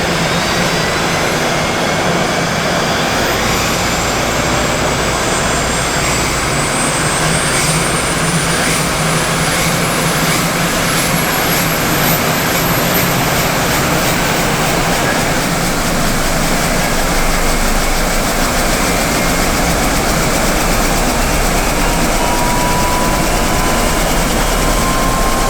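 Eurocopter AStar helicopter's turbine engine starting up, a loud steady running noise with a high whine that rises in pitch over the first dozen seconds as the engine spools up.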